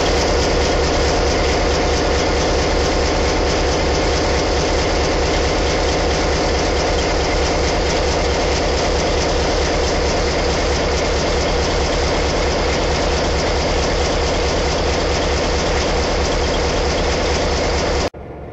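NOHAB M61 diesel-electric locomotive's EMD 16-567 two-stroke V16 diesel engine running steadily and loud, with a fast, even low beat. It cuts off abruptly near the end.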